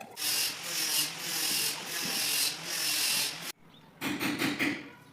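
Wood being sanded, a gritty rubbing that swells and fades in strokes. It cuts off abruptly about three and a half seconds in, and a shorter burst of similar scraping follows.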